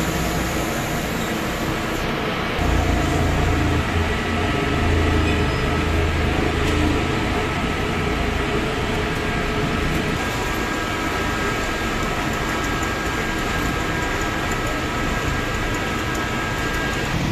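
Cut potato fries deep-frying in a commercial fryer, the oil sizzling steadily around the wire baskets. A low rumble under it grows heavier for a few seconds near the start.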